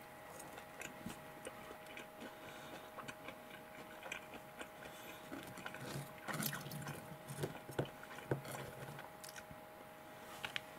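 Quiet eating sounds: chewing a cheese-sauced Chicken McNugget, with scattered light clicks of chopsticks picking up the pieces and a couple of sharper clicks near the end.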